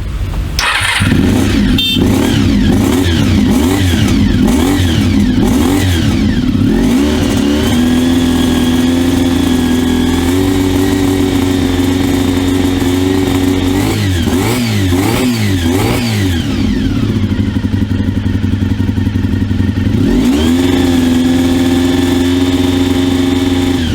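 1995 Honda RVF400 NC35's 399cc V4 engine with gear-driven cams being revved. It is blipped up and down quickly several times, held steady at high revs for several seconds, blipped again and dropped lower, then held high again near the end.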